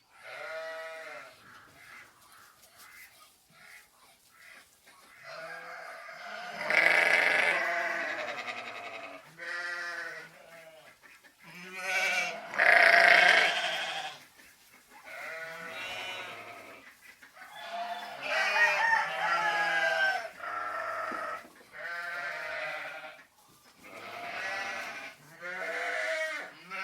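Farm animals calling one after another, mostly bleating, with short pauses between the calls; the loudest calls come about 7 and 13 seconds in.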